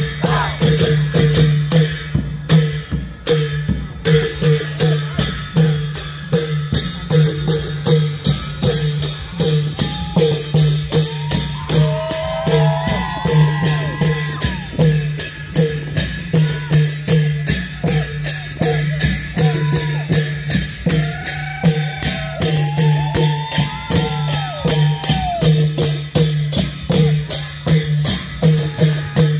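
Klong yao long-drum ensemble playing a steady, driving rhythm of evenly spaced beats. A gliding melody line joins twice, once in the middle and again later.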